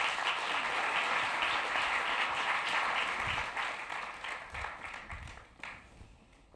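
Audience applauding, the clapping thinning and fading out over the last few seconds.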